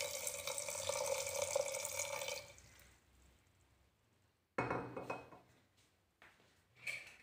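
Water poured in a stream into an aluminium pressure cooker of soaked dried white peas, the stream thinning and stopping about two and a half seconds in.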